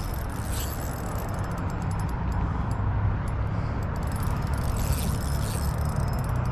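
Fishing reel being cranked to bring in a hooked trout, with a fast run of fine gear clicks, over a steady low rumble.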